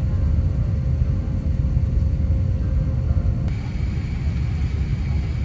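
Steady low vehicle rumble. About three and a half seconds in the sound changes abruptly and a faint steady high tone joins it.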